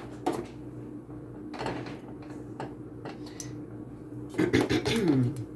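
Butter knife spreading margarine on a slice of bread: several short scraping strokes, with a quicker run of strokes near the end.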